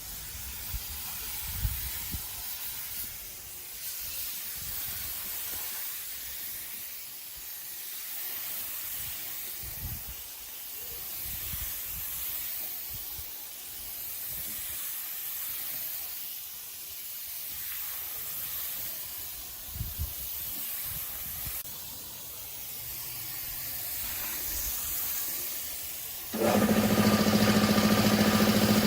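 Compressed-air spray gun hissing in repeated sweeps that swell and fade every few seconds, with a few light knocks. Near the end an engine starts and runs steadily at idle, much louder.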